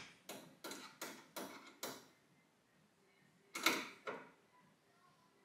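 Screwdriver turning a screw in a car headlamp unit: a quick run of six short, faint scraping strokes about a third of a second apart, then a louder one and a last small one a little later.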